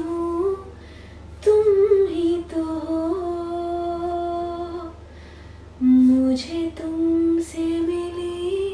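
A woman singing a song unaccompanied, in a few phrases with long held notes, as her turn in a game of Antakshari.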